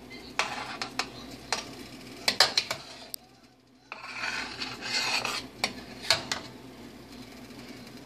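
Metal spoon scraping along the bottom of a metal roasting pan and clinking against its sides as it scoops up pan juices to baste a roasting turkey. The clinks are sharp, several of them, with scraping stretches in between.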